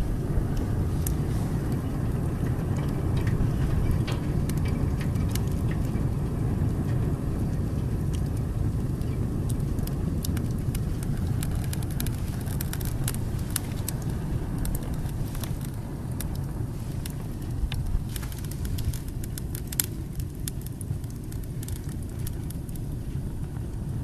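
Wood fire burning in a fireplace: a steady low rumble of flames with scattered crackles and pops from the burning logs, busiest around the middle, with a few sharper pops later on.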